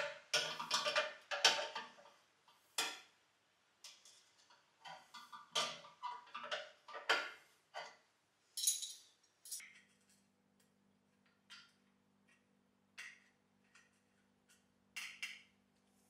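Open-ended spanner clinking and scraping against the nuts and metal of a Tilley FL6 runway lamp's housing while it is worked on: a quick series of short metallic clatters, dense in the first half, thinning to a few separate sharp clinks later.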